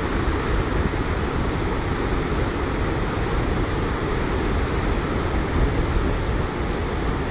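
Floodwater released through dam floodgates opened to 12 feet, crashing into churning whitewater below: a steady, deep rush of water.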